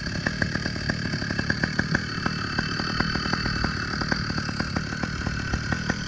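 Phantom 85 two-stroke bicycle engine kit running steadily at idle, a rapid, even train of firing pulses.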